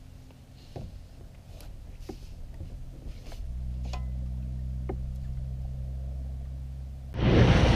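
Low, steady boat-motor hum that grows stronger about three and a half seconds in, with a few faint clicks over it. Near the end the sound switches abruptly to the loud rush of the motorboat running under way, motor drone and water noise together.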